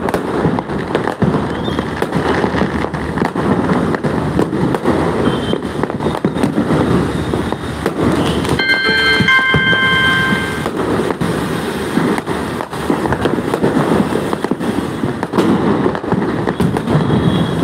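Many aerial firework shells and firecrackers going off at once: a dense, unbroken run of bangs and crackle. A steady horn-like tone sounds for about two seconds midway.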